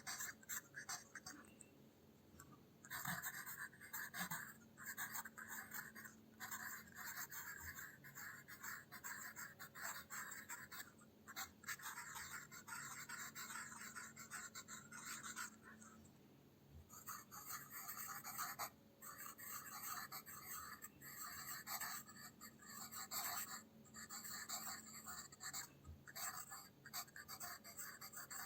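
Pencil lead scratching across paper in calligraphy strokes: runs of scratchy writing a second or more long, broken by short pauses as the pencil lifts.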